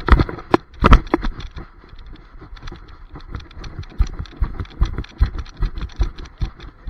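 Camera strapped to a running dog's harness jostling with each stride: rhythmic knocks and rustling at about two to three a second, after two louder knocks in the first second.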